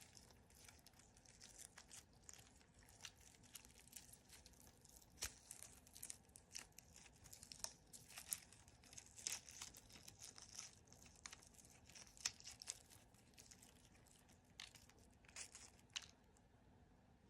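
Faint crinkling and tearing of thin plastic or foil packaging being opened by hand, in irregular soft rustles and small clicks that die away shortly before the end.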